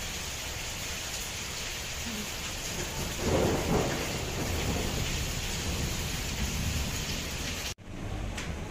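Heavy rain pouring down steadily in a thunderstorm, with a rumble of thunder swelling up about three seconds in. Near the end the sound drops out for an instant, then the rain carries on.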